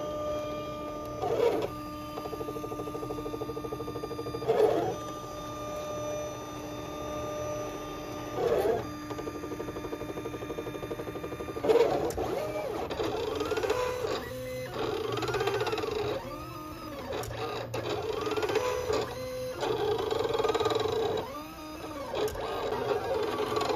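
Silhouette Cameo 4 cutting machine cutting sticker sheets: its motors whine as the carriage and rollers move the paper. There are a few short louder whirs in the first half, and from about halfway the whine rises and falls over and over as the blade traces the sticker outlines.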